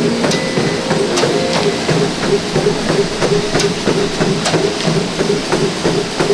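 Busy gym: cardio machines running with a steady whir and hiss, over irregular clanks and knocks of equipment.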